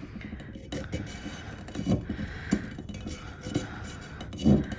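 Craft knife blade scraping and ticking along the rim of a stainless steel tumbler, trimming off cured excess epoxy, in a run of small scrapes and clicks, with a louder knock near the end.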